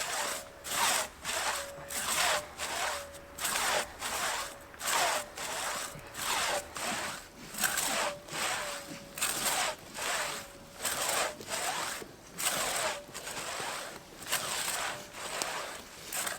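Hand saw cutting through a spruce log in steady back-and-forth strokes, about two a second, with the blade giving a short ringing note on each stroke.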